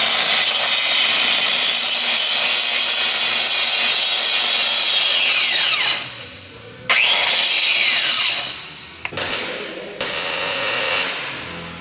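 Handheld electric grinder cleaning rusted steel, run in several bursts. Its whine drops in pitch as it spins down about six seconds in, it starts again a second later, spins down again with a brief blip, then runs once more and winds down near the end.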